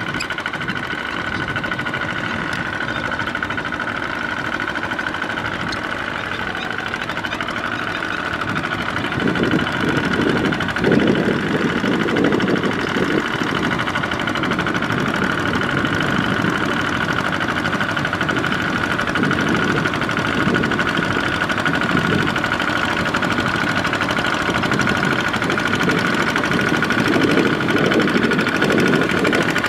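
Two-wheel walking tractor's diesel engine running steadily as it drags its cage wheels through flooded paddy mud, growing louder about a third of the way in as the machine draws near.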